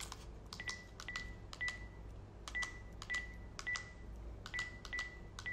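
House phone's keypad beeping as a number is dialled: about ten short, high beeps, each with a button click, in an uneven rhythm.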